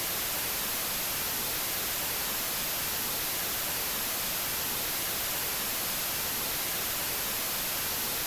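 Steady, even static hiss with nothing else in it.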